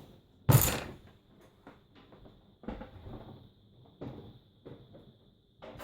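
Sheet-metal computer case being handled as its cover panels go back on: one loud sliding knock about half a second in, then several lighter clicks and knocks.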